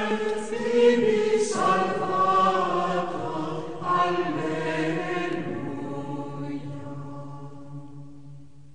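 Choir chanting in long held chords, changing chord twice and then fading out toward the end.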